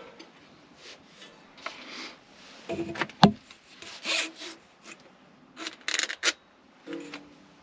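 Scattered rubbing and scraping strokes of tools and parts being handled while bolting the turret onto a diesel heater unit, with one sharp knock about three seconds in.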